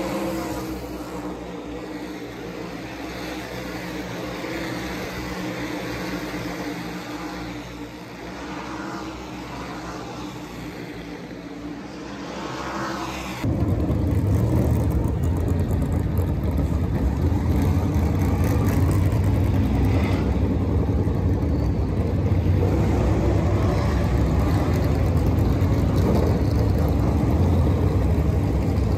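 NASCAR Cup stock cars' V8 engines running: first a steady drone of cars circling the track, then about halfway through an abrupt jump to a louder, deeper rumble of cars running close by.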